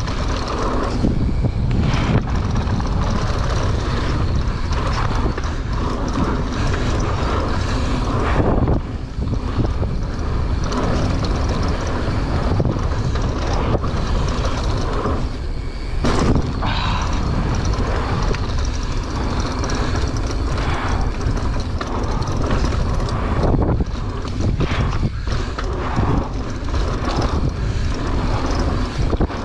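Steady wind rush on the microphone over the rumble and rattle of a mountain bike rolling fast down a dirt trail, with brief lulls about 9 and 16 seconds in.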